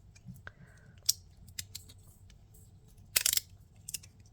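Glow-in-the-dark fidget derby pieces clicking and tapping as they are handled. There are scattered single clicks, then a quick rattling cluster about three seconds in and a couple more clicks near the end.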